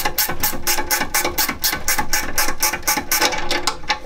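Hand socket ratchet clicking steadily, about five or six clicks a second, as it drives fasteners on a metal heater housing. The clicking stops just before the end.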